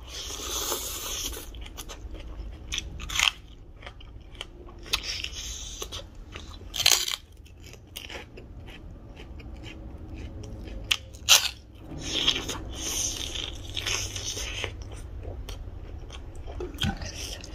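Close-up mukbang eating sounds: a person biting into crisp fried snack sticks and chewing, with several sharp crunches spread among quieter chewing and mouth sounds.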